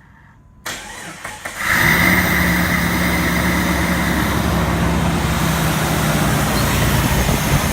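2001 Jeep Grand Cherokee 4.0 inline-six cranked by the starter, catching after about a second and then running steadily. A high whine fades out after its first couple of seconds of running. It now starts and runs without backfiring, with a new crankshaft position sensor replacing the old one that had been scrubbing on the flywheel.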